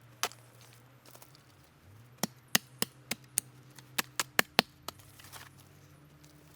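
Wood being chopped for the fire: about ten sharp strikes in quick, uneven succession, starting about two seconds in and stopping about five seconds in.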